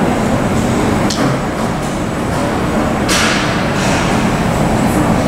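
Steady, loud airport apron rumble with a thin high whine over it, a few short knocks, and a brief hiss about three seconds in.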